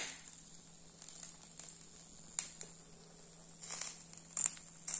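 Marinated chicken breasts sizzling faintly on an electric grill: a steady high hiss with a few scattered small crackles and pops, more of them near the end.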